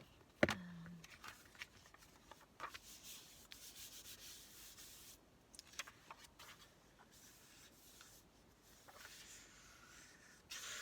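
Paper being handled and rubbed by hand at a craft table: soft rustling and rubbing with a few light clicks, and one sharp click about half a second in.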